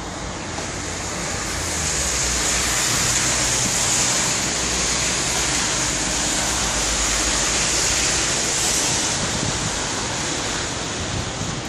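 A car driving along a slushy, wet street: tyres hissing through the slush over a low engine hum, swelling about two seconds in and easing off near the end.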